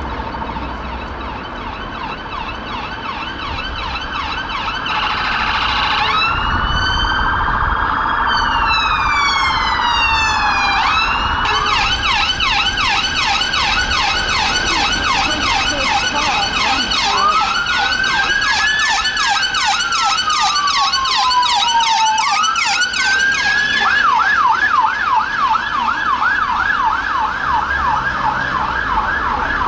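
Sirens of two police Vauxhall Astra patrol cars responding, growing louder over the first few seconds as they approach. Two tones overlap, a rapid yelp and a slower rising-and-falling wail, with a run of quick falling sweeps a little before the middle.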